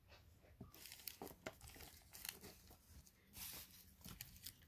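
Faint crinkling and rustling of packaging being handled, in scattered short crackles.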